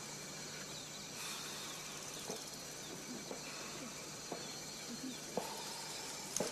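Faint outdoor field ambience: a steady hiss with insects chirping, and a few soft rustles or footfalls.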